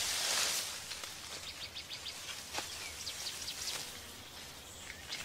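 Rainforest ambience: a steady high hiss with quick runs of short, high chirps from small animals, several in a row each time, and a single short sharp click about two and a half seconds in.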